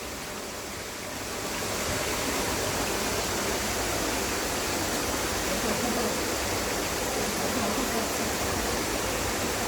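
Mountain valley stream rushing steadily over rocks, a constant watery noise that grows a little louder about a second or two in.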